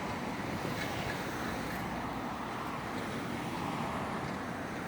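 Steady road traffic noise, vehicles running past on a busy road, with some wind on the microphone.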